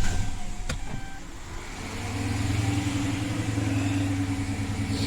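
Freshly started 5.7-litre Hemi V8 of a Dodge Charger flaring up just after firing, then settling into a steady idle about two seconds in. A single sharp click sounds early on.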